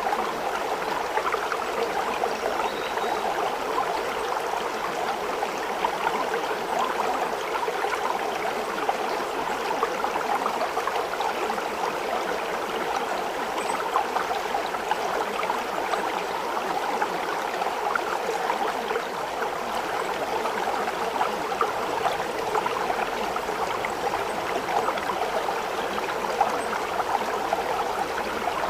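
A stream running steadily: an even rush of water with a fine trickling texture.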